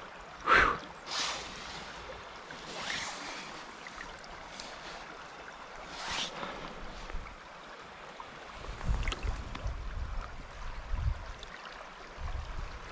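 Shallow creek water running and sloshing around hands holding a steelhead in the current to revive it, with a few short splashes, the loudest about half a second in. Low rumbles come and go in the last few seconds.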